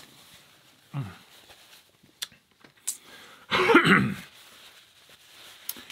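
A man's throat noise: a short, low falling grunt about a second in, then a louder rough throat sound lasting about a second near the middle, with a few small clicks between.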